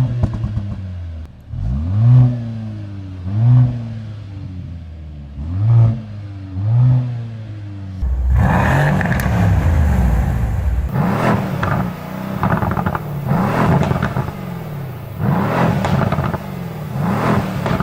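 Mercedes-AMG C63 engine and exhaust revved in short separate blips, about five in the first half. About eight seconds in, it cuts to a louder passage of quick repeated revs.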